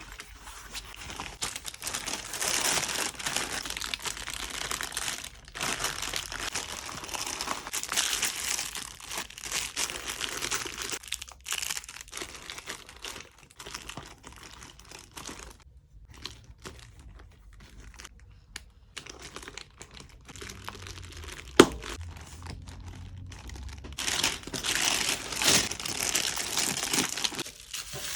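Packaging crinkling and rustling as it is handled and filled, in long spells with a quieter stretch in the middle, and a single sharp click about two-thirds of the way through.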